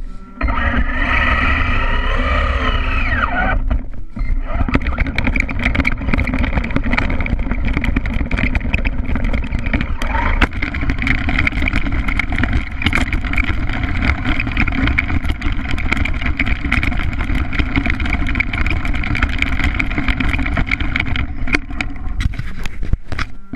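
Radio-controlled stadium truck's motor running as it drives over grass, its pitch rising and falling a few times in the first seconds, then running steadily with constant small knocks and rattles from the chassis and tyres.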